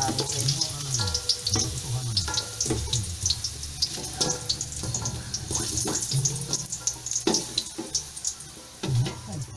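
Potato chunks frying in oil in a stainless steel pan, sizzling and crackling as they are stirred with a wooden spatula.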